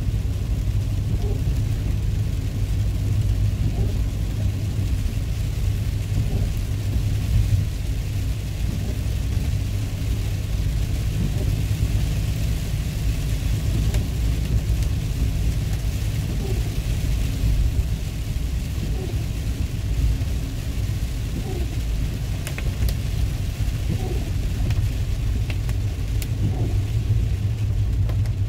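Inside a car driving in rain: a steady low rumble of road and engine noise, with the hiss of tyres on wet pavement and rain on the car. A few sharp ticks come near the end.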